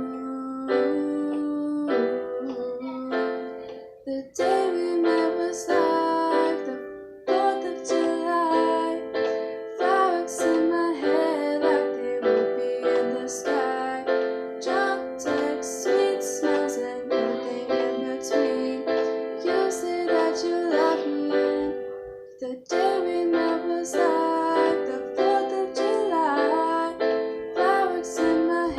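Piano playing an instrumental passage of sustained chords, one after another, with brief pauses about 4 and 22 seconds in.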